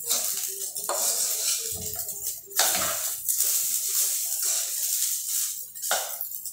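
A wooden spatula scraping and knocking against a metal frying pan as rice is stir-fried over a gas flame, with a steady hiss of sizzling throughout and a few sharper knocks.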